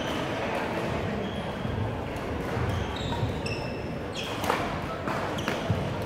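Athletic shoes squeaking in short chirps on a hardwood gym floor, with a few sharp knocks in the second half, over the echoing background noise of a large gym.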